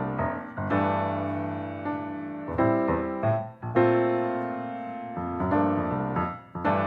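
Background music: piano chords struck about once a second, each ringing and fading.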